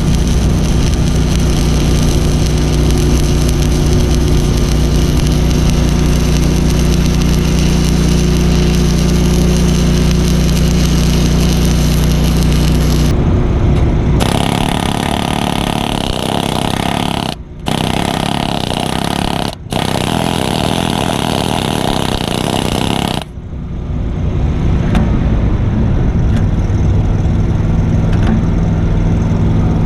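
Engine-driven welding machine running steadily under the hiss and crackle of arc work on the steel boom. About 14 seconds in the sound switches abruptly to a harsher, louder noise that cuts out twice for a moment. About 23 seconds in it gives way to the welder's engine again.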